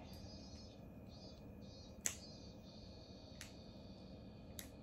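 Quiet room tone with a few faint clicks, the sharpest about two seconds in.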